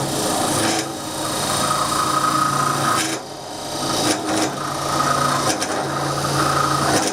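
Parting tool cutting into a spinning wooden cup on a wood lathe: a rasping scrape over the hum of the lathe, easing off briefly about three seconds in before the tool goes in again.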